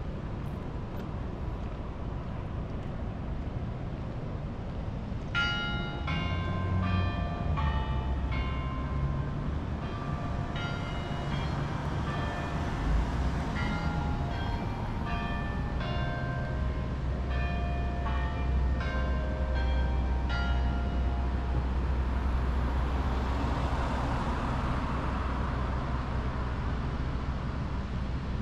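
Bells of the Century Tower carillon playing a tune, starting about five seconds in: struck notes following one another a few a second and ringing on, over a steady low traffic rumble. A car passes near the end.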